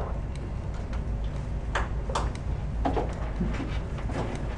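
Room tone: a steady low hum with a few faint scattered clicks and knocks.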